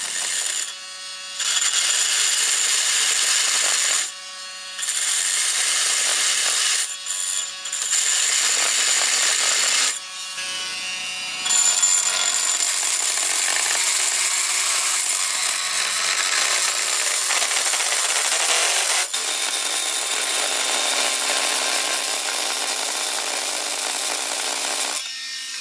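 Milwaukee M12 cordless oscillating multi-tool with a Bosch carbide plunge blade, cutting into a rusted-in exhaust pipe remnant in a Honda ATC70 cylinder head's exhaust port. It makes a loud, high, rasping cutting noise that stops and restarts briefly a few times in the first twelve seconds, then runs steadily.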